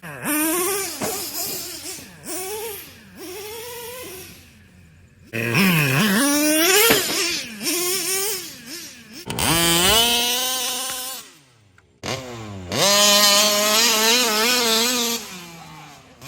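Small gasoline two-stroke engine of a large-scale RC car, a Taylor RC big-bore, revving hard. It starts with a string of short throttle blips that rise and fall in pitch, then comes a long high-rev run. After a brief drop it holds at high revs again and winds down near the end.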